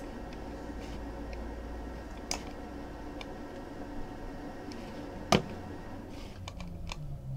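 Scattered clicks of a computer mouse and keyboard over a steady low hum, with a few more clicks close together near the end.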